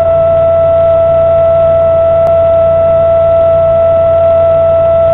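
Radio signal from a pulsar (a rotating neutron star) converted into sound: a steady high-pitched tone with fainter overtones over a low hum, unchanging throughout.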